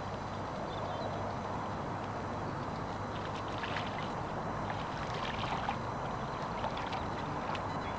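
Steady low outdoor rumble, with faint light clicks and taps scattered through it from about three seconds in.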